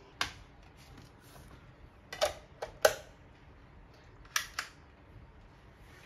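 Camera shutter clicks: one near the start, two more around two to three seconds in, and a quick double click a little past four seconds.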